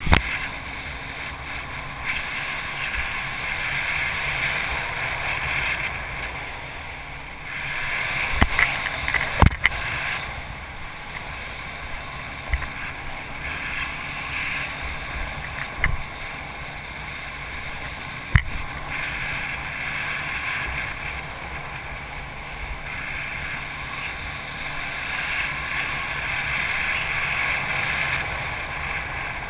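Water rushing and hissing under a wakeboard being towed behind a boat, swelling and easing as the rider cuts back and forth, with wind on the rider's camera. A few sharp knocks break in, twice close together about nine seconds in and again twice later.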